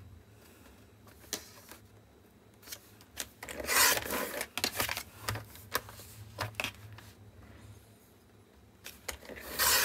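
Scrapbook paper being cut into panels and handled: scattered light clicks and a short rasping rustle about four seconds in.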